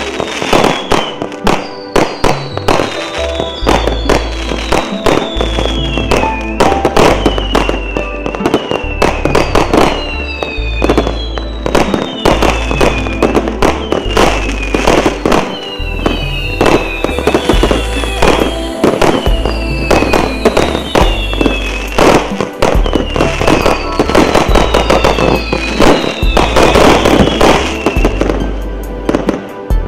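100-shot fireworks cake firing in rapid succession: a dense stream of launch bangs and bursts, over background music with a heavy bass.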